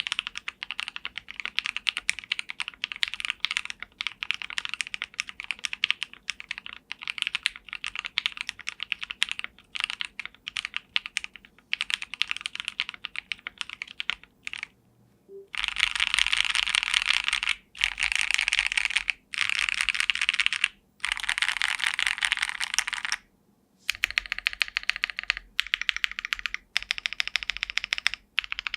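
Mechanical keyboard being typed on for a sound test: separate key clacks at first, then from about halfway through, fast continuous typing in bursts of a second or two with short pauses between.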